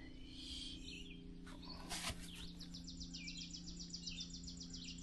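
Faint birds chirping, with a rapid repeated trill in the second half, over a low steady hum; a single click about two seconds in.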